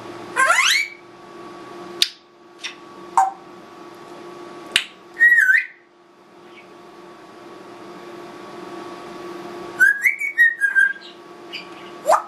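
Congo African grey parrot whistling and making mimicked sound effects: a quick rising whistle, a few sharp clicks, then warbling whistled phrases twice, and another rising whistle at the end.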